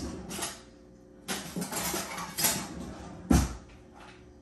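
Spatula scraping and stirring a thick flour mixture in a blender jar, with small clicks and a scraping, rustling stretch, then one sharp knock about three seconds in.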